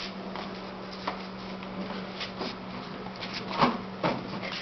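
Small dogs scrabbling and scuffing about while chasing a light: a scatter of short scrapes and taps, the loudest about three-quarters of the way through, over a steady low hum.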